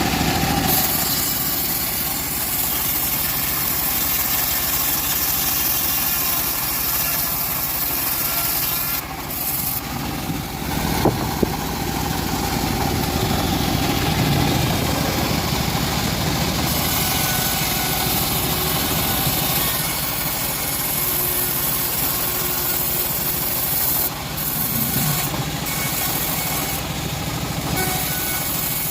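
Band sawmill running steadily as it saws teak wood, its engine and blade making a continuous mechanical drone. Two sharp clicks about eleven seconds in.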